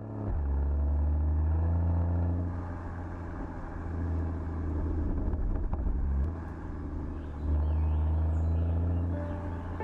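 Porsche 981 Boxster GTS's 3.4-litre flat-six engine and exhaust under way at a fairly even engine speed. The note swells and eases in loudness several times as the throttle is opened and lifted.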